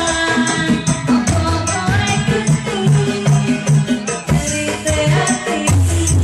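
Music with a steady beat: a repeating bass line under sustained melody notes, with a quick, even high percussion pattern on top.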